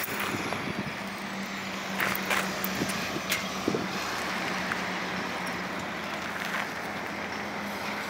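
Steady road-traffic noise, an even hiss with a low hum, with a few faint clicks about two to three seconds in.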